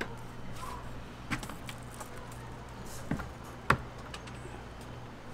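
Ice cream being scooped out of a tub in a display freezer: a few sharp clicks and knocks of the scoop against the tub, the loudest nearly four seconds in, over a steady low hum.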